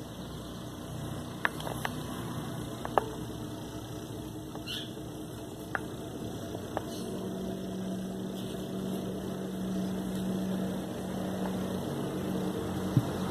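A handful of light clicks and taps, five or so in the first seven seconds, as a small metal tool works potting soil around succulents in a plastic pot. Underneath is a steady low hum, joined by a low even drone for several seconds in the middle.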